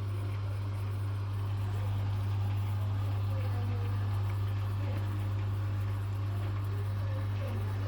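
Hoover washing machine running with a steady low hum.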